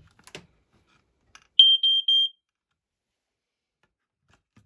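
FireX smoke alarm sounding three short, loud, high-pitched beeps in quick succession about one and a half seconds in, after a couple of faint clicks.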